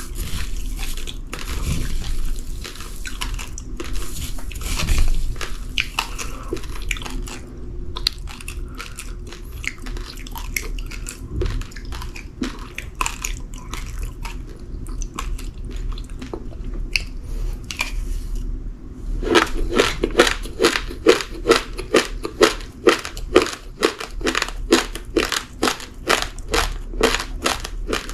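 A person chewing uncooked rice grains, with crisp crunching. Later the chewing settles into a steady rhythm of loud crunches, about two a second.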